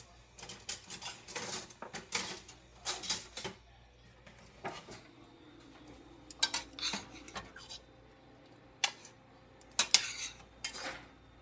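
Metal spoon clinking and scraping against a cooking pot and a plate as food is served: a quick run of clinks for the first few seconds, then scattered clinks.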